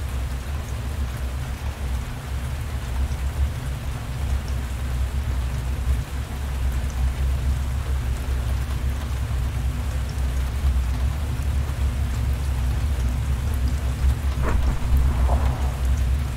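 Steady heavy rain with a deep, continuous low rumble underneath. A short sharp crack comes near the end.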